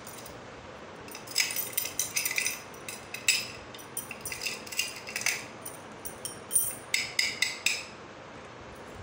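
A ring of small metal keys and a steel padlock jingling and clinking as they are handled, with the keys set down on a tile floor: a quick run of sharp clinks lasting about six seconds.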